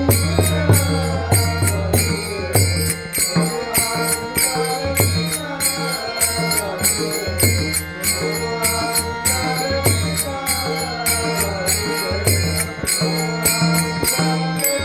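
Varkari bhajan: a male lead singer holding and bending long melodic lines, over a steady beat of small hand cymbals and the low strokes of a barrel drum.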